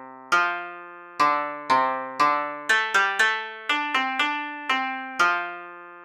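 Background music: a short melody of single notes, each struck sharply and then fading, about two notes a second.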